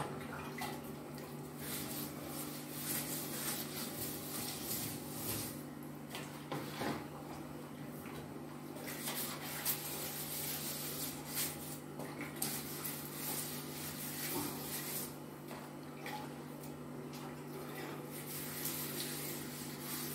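Water splashing and a wet cloth wiping tiled bathroom walls during cleaning, in irregular bursts over a steady low hum.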